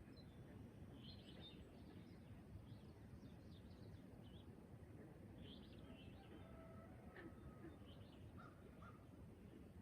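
Faint birds chirping at a distance in short, scattered calls, with a few thin whistled notes about halfway through, over a low steady background hush of outdoor ambience.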